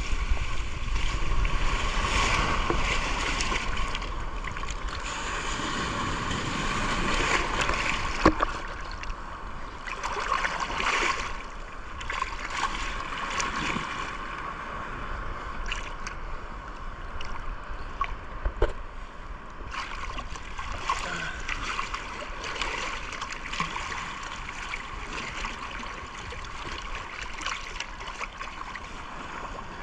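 Small surf waves washing over shallow sand, with water sloshing and splashing close to the microphone held near the surface, a little louder in the first few seconds and with a couple of sharp knocks along the way.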